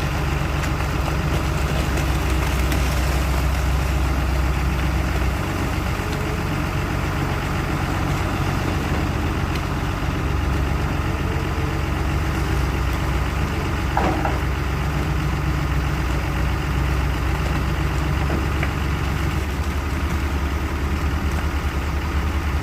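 Excavator's diesel engine running steadily, with a short squeak about fourteen seconds in.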